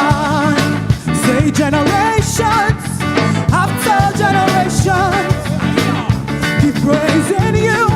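A live church praise-and-worship band playing an upbeat groove, with drums, a steady bass and a wavering melody line over it.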